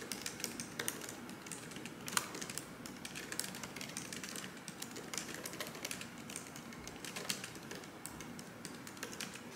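Typing on a computer keyboard: light, irregular key clicks with short pauses.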